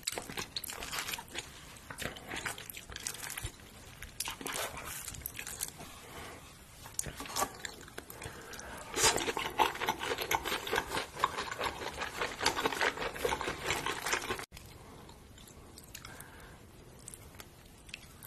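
Close-miked chewing and crunching of crispy fried chicken coated in sticky spicy sauce, a dense run of crackles and wet mouth sounds that grows busier past the middle. It cuts off abruptly about three-quarters of the way through, giving way to quieter, softer chewing.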